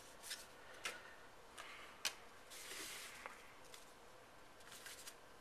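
Faint handling of trading cards on a table: a few light ticks of card stock and a soft brushing rustle a little past halfway.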